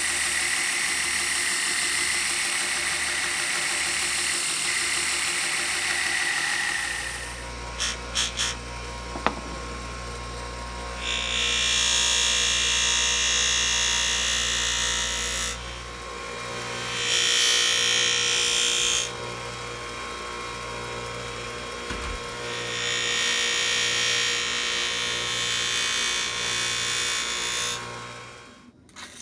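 A power grinder sharpening a knife edge, with a steady high hiss at first. Then come three passes of a few seconds each, where the grinding noise rises sharply as the blade is pressed on.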